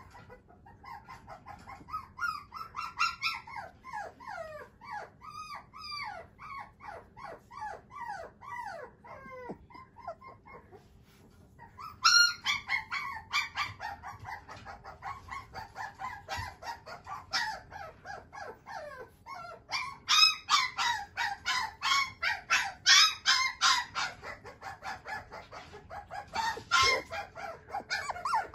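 Shiba Inu puppy crying and whining: long runs of short cries that fall in pitch, several a second. They pause briefly about ten seconds in, then come back louder and thicker from about twelve seconds.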